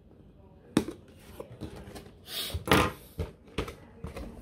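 Pocket knife cutting the tape on a cardboard box, with a short scraping rasp. Several sharp knocks and taps come from handling the box, the loudest a little under three seconds in.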